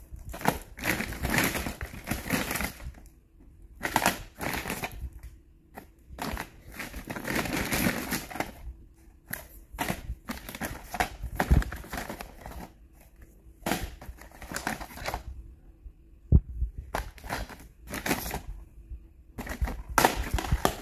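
Plastic DVD and Blu-ray cases clacking and knocking together while a woven plastic IKEA bag rustles as they are rummaged through, in irregular bursts with short pauses.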